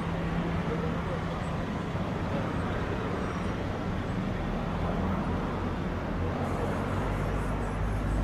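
Twin-engine Airbus jet airliner taxiing, its engines running at low taxi power: a steady rumble with a low hum that grows stronger near the end.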